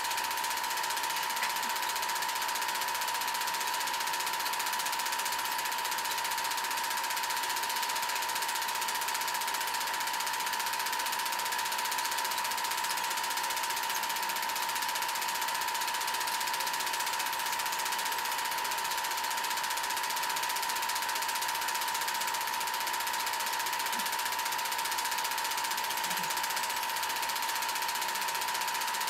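Home-movie film projector running, a steady mechanical clatter with a constant whining tone over it.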